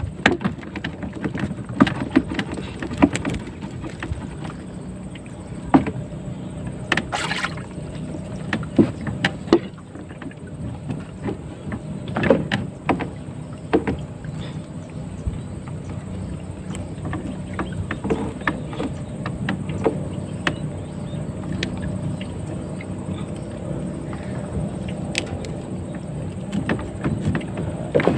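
A small boat's motor running steadily, with scattered knocks and clunks over it and a short hiss about seven seconds in.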